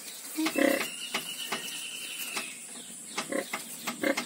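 A litter of newborn piglets suckling at the sow: short grunts and squeaks, with one long high squeal held for about two seconds starting about half a second in.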